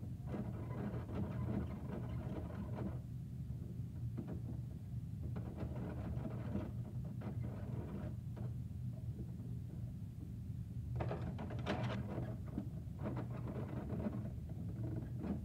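Plastic Bruder toy garbage truck's side-loader arm being worked by hand, clicking and rattling in short spells over a steady low hum.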